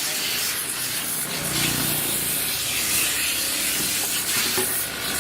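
A spray jet hissing steadily, with uneven swells, as the refrigerator is sprayed.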